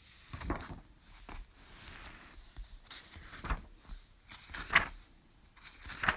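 Pages of a book being turned and handled: soft paper rustling with a few light clicks and knocks, the sharpest just before the end.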